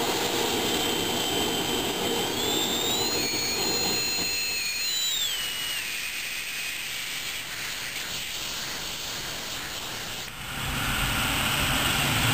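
Hago siphon-nozzle oil burner running with its flame lit, then the flame blows out about four seconds in and only the hiss of the atomised oil spray goes on, unlit; a high whistle rises and falls around the change. About ten seconds in the noise dips briefly, then comes back louder and deeper.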